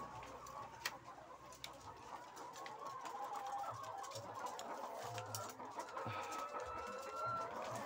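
A flock of laying hens clucking and calling over one another, with scattered sharp clicks, the loudest about a second in.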